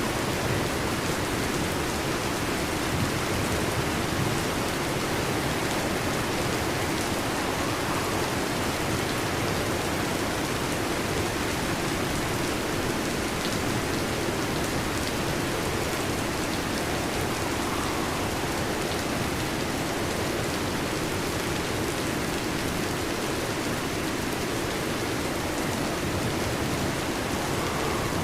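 Heavy rain falling steadily, a dense, even hiss of drops with no break.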